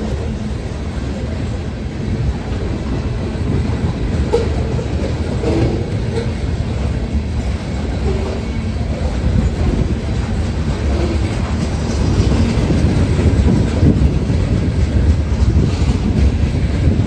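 Covered hopper cars of a freight train rolling past: a steady low rumble of steel wheels with clickety-clack over the rail joints, growing a little louder about twelve seconds in.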